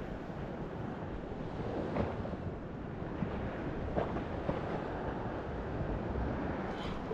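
Sea surf washing onto a pebble beach: a steady rushing noise, with a couple of faint clicks about two and four seconds in.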